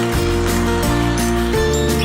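Music: sustained pitched notes over a bass line that moves to a new note every half second or so.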